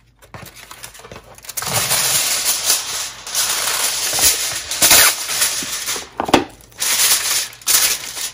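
Aluminium foil rustling and crinkling as a sheet is pulled off the roll and pressed and folded down over a metal sheet pan. The crackling starts about a second and a half in and goes on in uneven bursts, with a short lull near the end.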